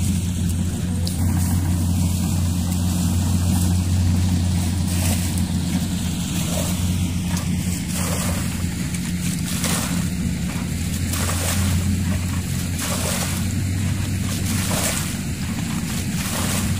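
A motor running steadily at one constant speed, with a deep, unchanging hum. From about five seconds in, short bursts of hiss come and go over it.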